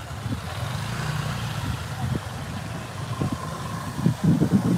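Motor scooter engines idling and running in a crowded street, a steady low hum of many small engines, swelling louder about four seconds in.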